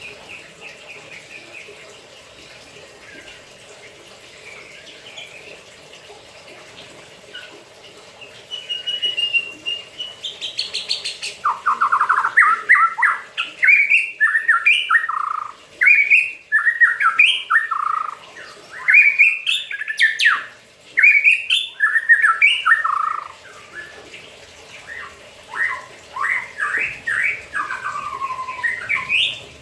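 White-rumped shama singing: quiet chirps at first, then from about a third of the way in a loud run of rapid, varied whistled phrases with short pauses between them.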